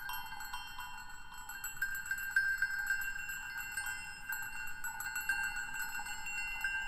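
Music of many overlapping chime tones, struck again and again and left ringing, all high with no low notes.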